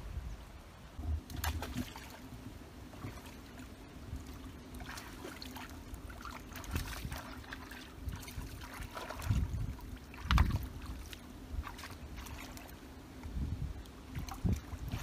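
Shallow seawater sloshing and splashing around shoreline rocks as a person wades and gropes through it by hand, with scattered splashes and irregular low rumbles.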